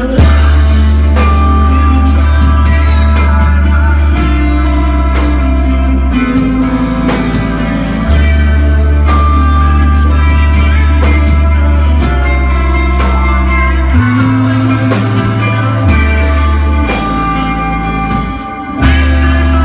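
Rock band playing live, loud: electric guitars and drum kit over a heavy bass line that moves to a new note every couple of seconds. Near the end the band drops back briefly, then crashes back in at full volume.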